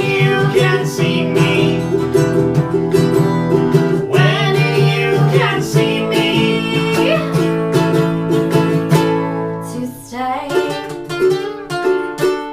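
Acoustic guitar and ukulele playing an instrumental passage of quick plucked notes, thinning out about ten seconds in to a few last plucked notes.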